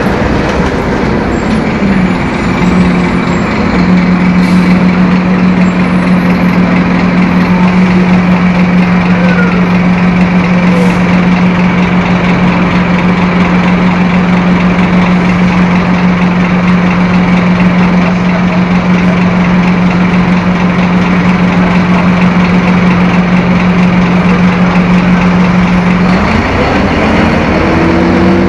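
Scania K-270 five-cylinder inline turbodiesel bus engine running loudly under way. Its drone drops in pitch over the first few seconds, holds one steady pitch for about twenty seconds, then climbs again near the end as engine speed rises.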